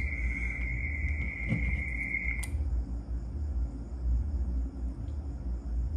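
Steady high-pitched electronic tone from an HF radio station while it transmits about 75 watts into an automatic antenna tuner. The tone cuts off sharply about two and a half seconds in, over a steady low hum.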